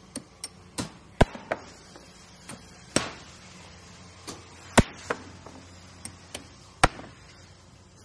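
Construction-site work: a dozen or more sharp knocks and strikes at irregular intervals, the loudest about a second in, near five seconds and near seven seconds, over a low steady hum. There is no continuous drill whine.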